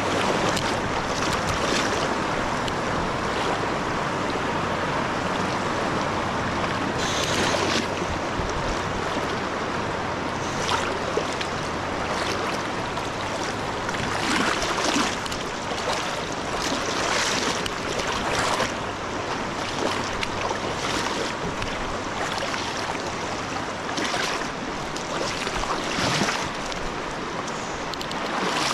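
Steady rushing of flowing river water, with a few brief louder surges of water sound now and then.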